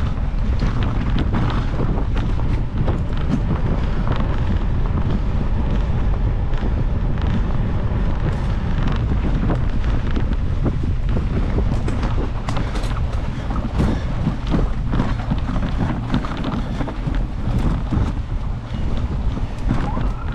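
Wind noise on the microphone over a steady low rumble from a mountain bike riding fast down a dirt singletrack, with frequent sharp clicks and rattles as the bike runs over roots and bumps.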